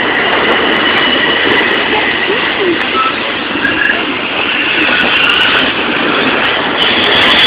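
Amtrak Superliner bi-level passenger cars rolling past at close range as the train departs: a steady, loud noise of steel wheels on the rails.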